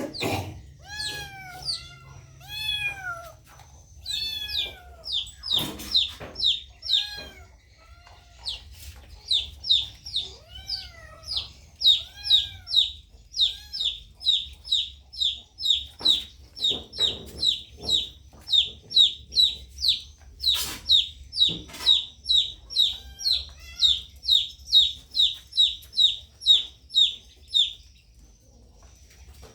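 A cat meowing a few times, then a baby bird peeping rapidly in short high calls, about two a second, with a few sharp knocks in between.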